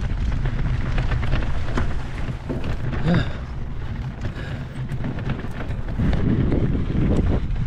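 Strong wind buffeting the action camera's microphone during a bicycle ride into a headwind, a dense steady rumble with many small clicks and rattles from the bike running over rough, unpaved ground.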